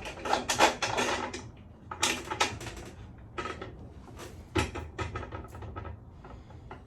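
Metal clinks, scrapes and knocks as an infrared heater bar is shifted along its wall brackets and fitted over the bracket threads, busiest in the first second and a half, then scattered clicks.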